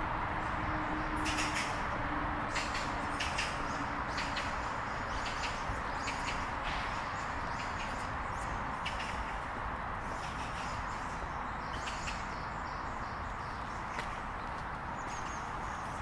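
Outdoor park ambience: many short bird chirps over a steady background rush.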